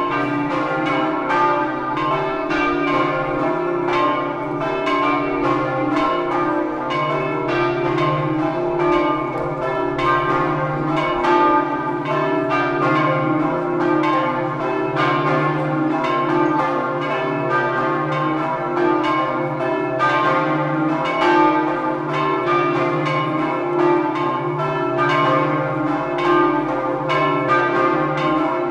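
Several church tower bells pealing together, sounding the noon ringing: a continuous run of rapid, overlapping strikes whose tones ring on and blend into one another.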